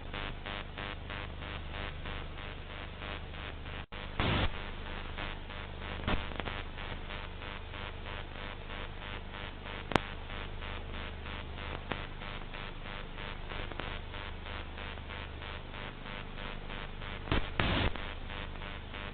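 Steady hiss with a low mains hum: the dead-air noise of a TV channel gone off the air after closedown. A brief dropout about four seconds in is followed by a short crackle, a sharp click comes near the middle, and another crackle comes near the end.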